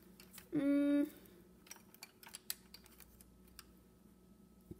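A short hummed 'mm' about half a second in, then scattered light clicks and taps of crayons being handled and sorted.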